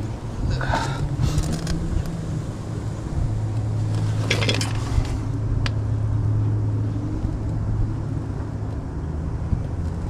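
A steady low mechanical hum, with rustling and scraping as an old fiberglass gasket is peeled off a furnace inducer blower housing by hand, loudest about half a second in and again around four and a half seconds, plus a single sharp click soon after.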